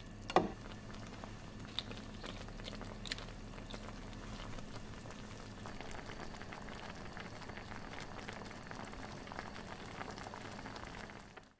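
Spicy ramen noodle soup simmering in a pan, a steady bubbling crackle. One sharp knock of the stirring utensil against the pan comes about half a second in. The sound stops abruptly near the end.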